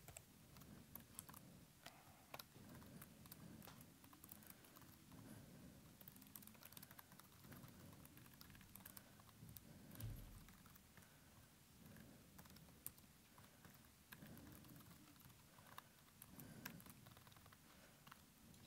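Faint typing on a computer keyboard, a scatter of quiet key clicks, with one soft low thump about halfway through.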